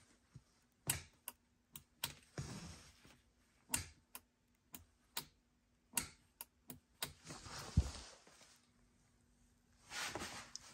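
Gloved hands handling plastic dash trim and wiring under a car's dashboard: irregular small clicks and taps, with a few short spells of rustling.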